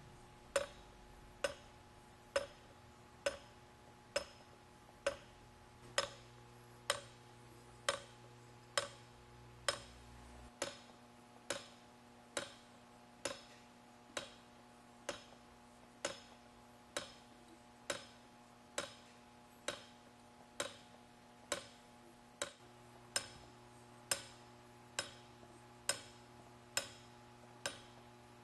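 Kinetic sculpture's small geared mechanism ticking, one sharp click about every second at a steady rhythm, over a faint steady motor hum.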